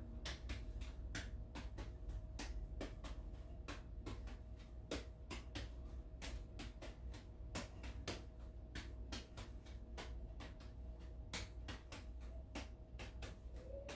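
Light-up juggling balls landing in the hands as three balls are juggled: a quick, slightly uneven run of sharp catch clicks, about three a second, over a low steady hum.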